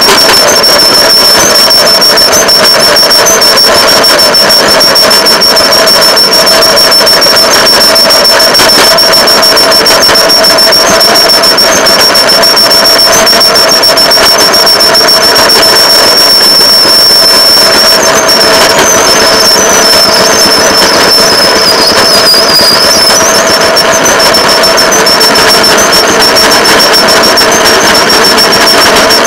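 Fire-patrol rail vehicle running steadily along the track, its engine and running gear loud and close, with a constant high-pitched whine over the rumble that wavers briefly about two thirds of the way through.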